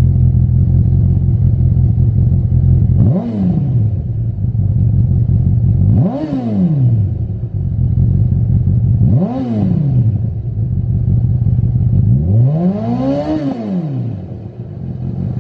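Honda CB1000R's inline-four engine running through a Lextek GP8C carbon aftermarket silencer: steady idle with four throttle blips about three seconds apart, each a quick rise and fall in revs, the last held a little longer.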